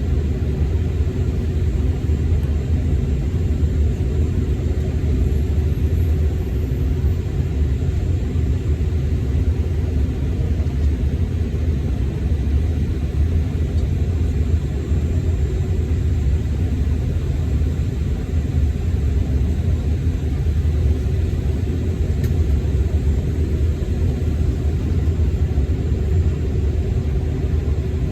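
Cabin noise of a Delta CRJ900 regional jet: a steady low rumble of its rear-mounted GE CF34 turbofan engines and airflow, with a faint steady hum.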